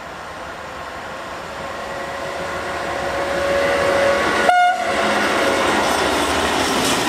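Pesa Gama 111Eo electric locomotive hauling a long train of open coal wagons, approaching and growing steadily louder, with a short horn toot about four and a half seconds in. The loaded wagons then roll past close by.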